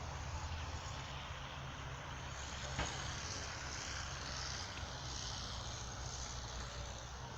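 Steady outdoor background noise: a low rumble under an even hiss, with one short click about three seconds in.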